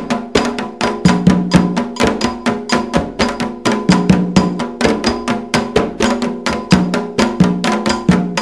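Candomblé ritual percussion: atabaque hand drums and a ringing metal agogô bell playing a fast, steady rhythm of about six strokes a second.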